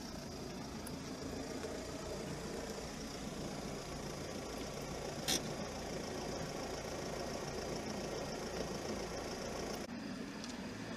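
Steady road ambience of distant traffic: a low rumble and hiss of car engines and tyres, with one short sharp click about five seconds in.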